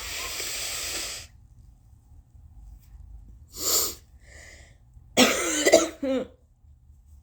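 A person blowing their nose hard in one long blast, then a short burst of breath, then a loud cough of two or three quick hacks.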